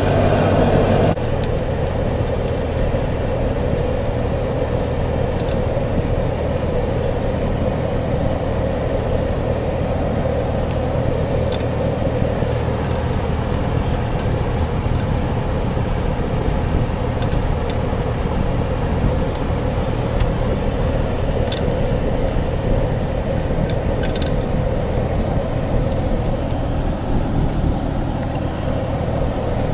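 Steady engine and road noise heard from inside a moving car's cabin, with a few faint clicks.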